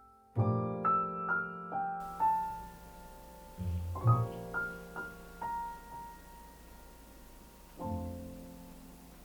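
Background piano music: a slow, sparse line of single struck notes over low chords, closing on a chord about eight seconds in that is left to ring out.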